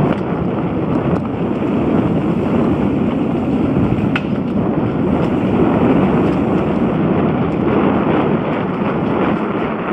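Wind rushing over a helmet-mounted camera's microphone while a hardtail mountain bike is ridden fast down a dirt singletrack, mixed with a steady rumble from the tyres and trail. A few faint ticks come through, one about four seconds in.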